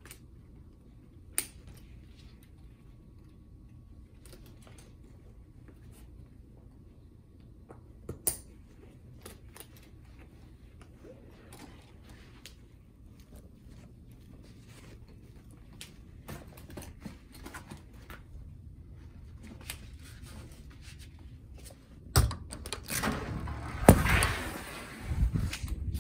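Handling noise of a fabric-and-mesh cat carrier being picked up and carried: a couple of sharp clicks and light rustling, then louder rustling and a few thumps over the last few seconds.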